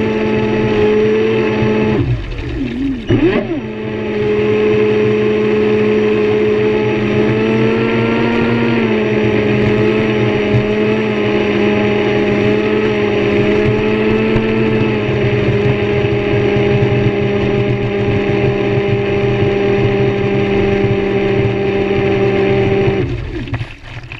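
Traxxas Spartan RC boat's brushless electric motor running at speed, a steady whine that drops out briefly a few seconds in, then holds and cuts off near the end.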